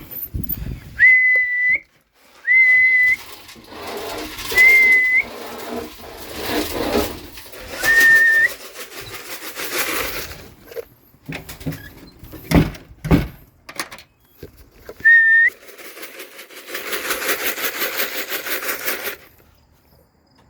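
A person whistling short, level notes, five in all, each with a slight upturn at the end, to call racing pigeons into the loft. Between the whistles come rustling noises, a couple of dull knocks, and a longer stretch of quick pulsing noise near the end.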